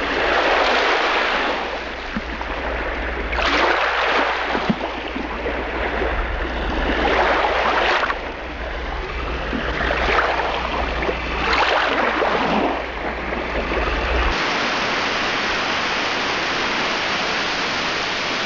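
Surf sound effect: waves swelling and washing away every few seconds over a low rumble, giving way about fourteen seconds in to a steady hiss.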